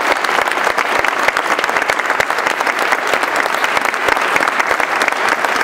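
An audience applauding: many hands clapping in a dense, even patter.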